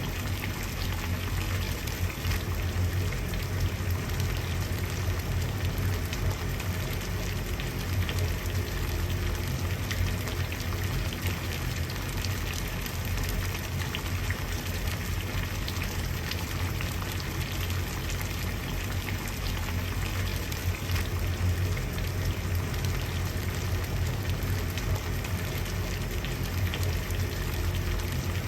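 Water boiling steadily: a continuous dense bubbling and crackling over a low rumble.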